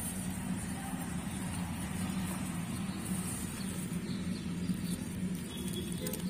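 A steady low hum runs throughout, with faint light rustling from hamsters moving and nibbling among wood pellets.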